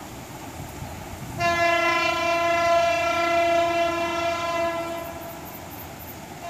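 Diesel locomotive air horn on the approaching Lalmoni Express sounding one long blast. A softer horn tone swells to full loudness about a second and a half in, holds for a few seconds, then fades, and a fresh blast begins right at the end.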